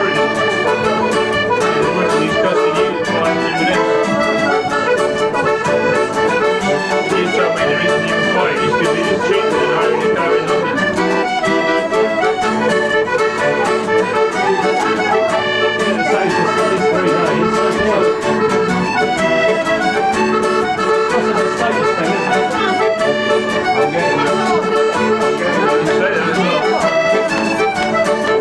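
Accordion playing a traditional tune, with an acoustic guitar accompanying.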